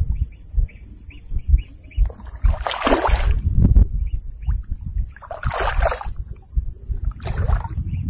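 Feet wading through shallow swamp water: three splashing strides a couple of seconds apart over a low rumble. Rapid, evenly spaced high chirps in the first couple of seconds.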